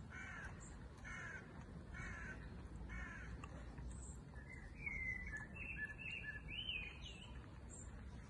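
Birds calling outdoors: one bird calls four times, about a second apart, then another sings a short phrase of rising and falling notes, with faint high chirps scattered throughout.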